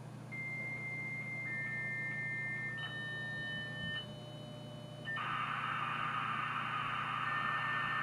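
US Robotics Courier modem's speaker playing a dial-up handshake with the answering BBS modem: a steady answer tone with small blips about twice a second, then overlapping higher tones, then from about five seconds in a loud hiss of data training as the two modems negotiate the connection.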